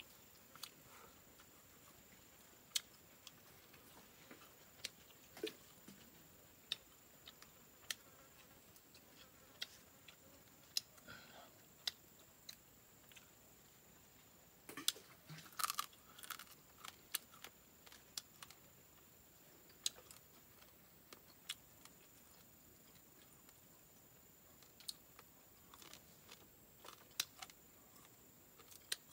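Faint, scattered clicks and crackles of a person eating grilled frog by hand, picking the meat apart and chewing, with a busier run of crunching about halfway through. A thin, steady high insect drone sits behind it.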